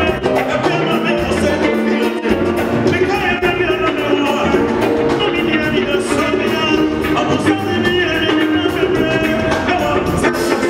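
Live gospel band playing an upbeat song with a steady drum beat, a male lead singer singing over it through a microphone and the PA.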